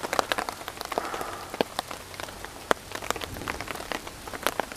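Rain falling on a camping tarp overhead: a steady hiss with many irregular, sharp drop strikes on the tarp.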